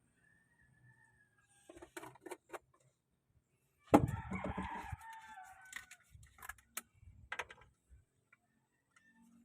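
A single loud animal call about four seconds in, lasting about a second and a half, with scattered clicks and knocks before and after it.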